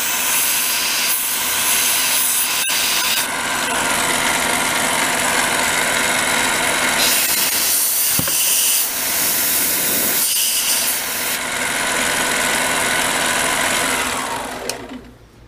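Harbor Freight mini lathe set up for milling, taking a cut on a workpiece: a steady motor whine under a loud, even cutting noise. It dies away near the end as the machine winds down.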